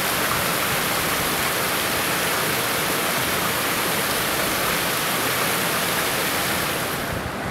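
Creek water rushing through a concrete weir channel, a steady, even rush of turbulent water that eases slightly near the end.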